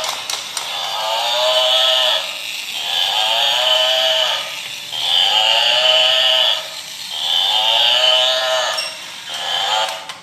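Battery-operated toy water buffalo playing its recorded animal call through its speaker, the same call repeating about five times, each a little over a second long with short gaps. The sound cuts off suddenly at the end.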